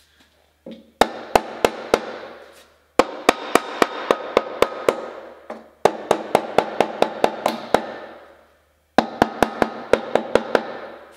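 A mallet tapping a steel headlight bucket into a car's front fender, in four runs of quick sharp taps, about three or four a second, with the sheet metal ringing after them. The bucket is being driven home into a bead of panel adhesive.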